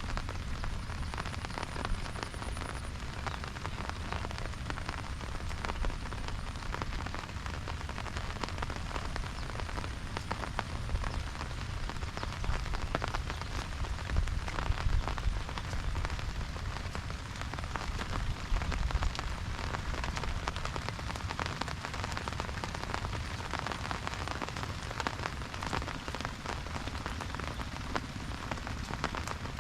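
Steady rain falling on an umbrella, with many close drops tapping continuously over a low rumble.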